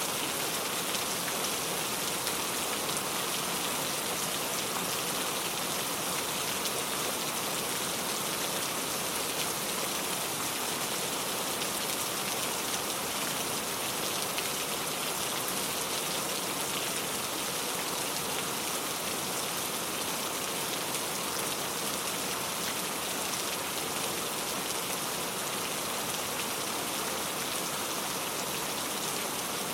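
Steady rain falling, a dense even hiss of many drops hitting a surface.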